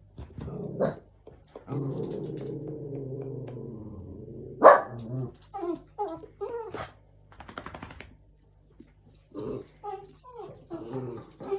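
Small pug–chihuahua cross dog growling for a couple of seconds, then giving one loud sharp bark followed by a string of short barks, reacting to knocking.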